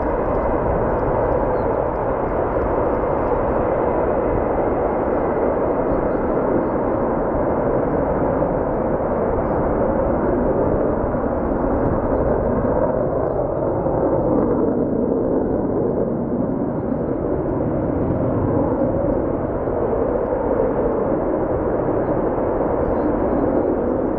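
Jet engines of Sukhoi-family twin-engine fighters running at high power: a loud, steady roar that swells slightly now and then.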